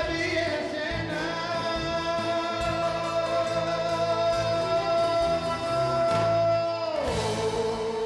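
Live Greek popular song: a male singer holds one long note over a band with bouzouki, then slides down to a lower note about seven seconds in.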